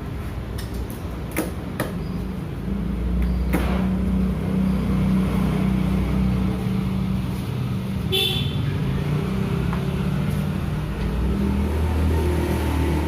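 A motor vehicle engine running steadily, louder from about two and a half seconds in, with a few sharp knocks early and a short high beep like a horn about eight seconds in.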